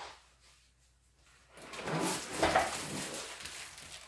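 Rolled diamond-painting canvas rustling as it is handled and rubbed by hand, starting about a second and a half in after a brief quiet.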